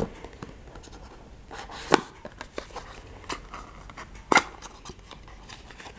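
A small paperboard advent-calendar box being pulled from its slot and opened by hand: light cardboard rustling with a few sharp taps and clicks, the loudest about two seconds and about four and a half seconds in.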